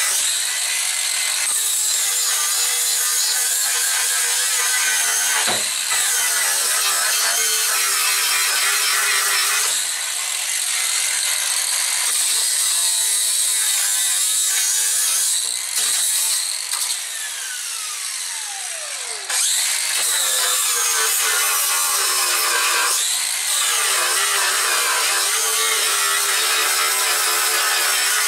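Angle grinder grinding the steel floor panel, running loud and steady. About two-thirds of the way in it is switched off and winds down in a falling whine, then starts up again a moment later and keeps grinding.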